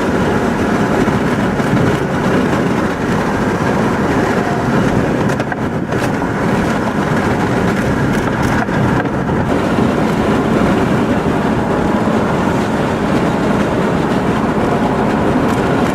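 Car driving at speed, a steady rush of road and wind noise heard from inside the cabin.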